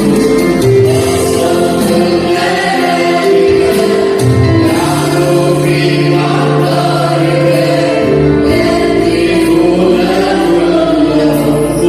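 A choir singing an Arabic Christian hymn over a backing track, in long held notes.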